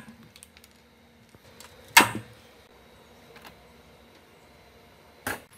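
Hand pop-rivet gun setting a blind rivet in sheet metal: a loud sharp snap as the rivet's mandrel breaks, about two seconds in, with light clicks of the tool around it. Another sharp click comes near the end.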